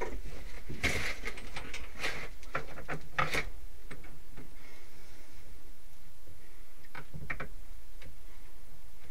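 A few scattered metal clicks and knocks as a workpiece is fitted into the chuck of an Atlas lathe, over a steady low hum.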